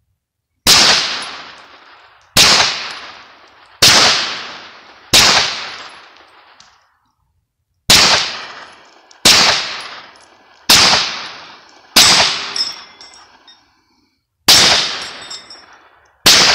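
Hi-Point 995TS 9mm carbine firing ten single shots, spaced about one and a half to two and a half seconds apart, each followed by a long echo dying away.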